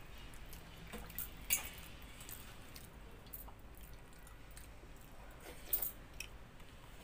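Fingers stirring and scooping water-soaked rice (pakhala) in a steel bowl: soft wet squishing and dripping, with a few sharp clinks against the steel.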